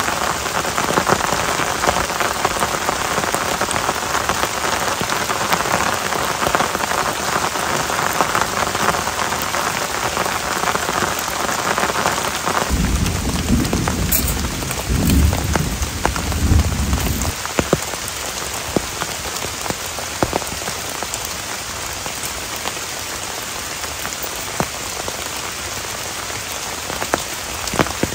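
Heavy rain falling steadily in a forest. The rain is brighter for the first dozen seconds, then duller, and a low rumble rises under it for about four seconds near the middle.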